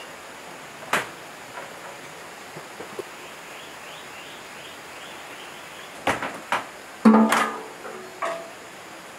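Scattered metal knocks and taps from work on a single-cylinder diesel engine, with a cluster of louder clanks near the end. The loudest is a hollow, ringing clang as a sheet-metal fuel tank is set down on the engine.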